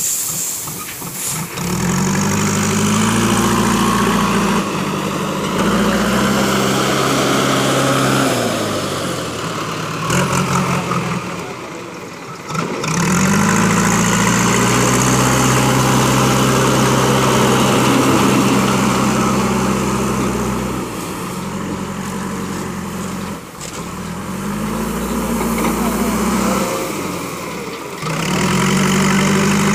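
JCB backhoe loader's diesel engine working under load, its revs rising and falling several times as the loader digs and lifts, with short dips in engine speed about twelve seconds in and again later.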